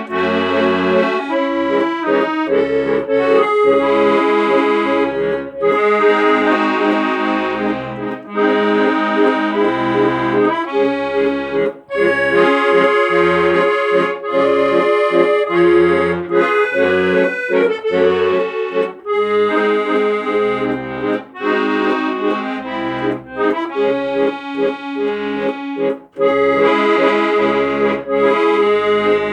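Accordion music: a melody over a steady accompaniment of alternating low bass notes.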